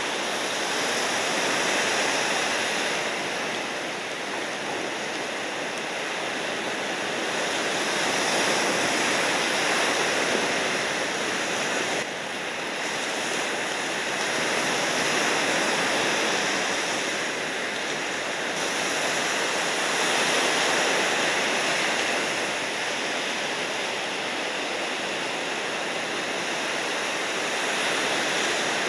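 Ocean surf: a steady rush of breaking and washing waves that swells and eases every several seconds.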